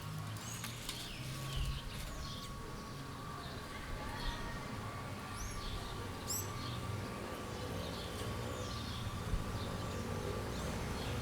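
Town-square ambience: small birds chirping repeatedly over a constant low rumble of street traffic, with a thin steady whine in the background.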